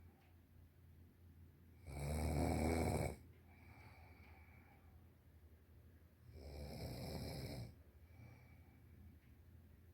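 A woman snoring in her sleep: two loud snores about four and a half seconds apart, each lasting about a second and followed by a softer breath out.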